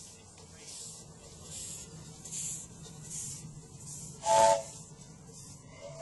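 Live-steam miniature RMI Prairie locomotive running under steam: its exhaust chuffs hiss at roughly one puff every 0.8 seconds, and about four seconds in it gives a short, loud toot on its chime steam whistle, a chord of a few notes, with a second toot starting at the very end.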